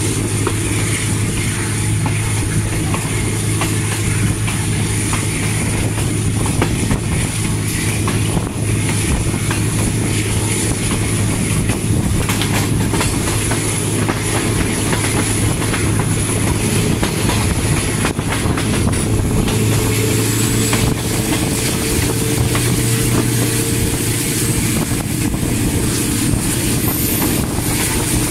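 ZCU-20 diesel-electric locomotive running steadily under power as the train pulls away, with wheels knocking over the rail joints.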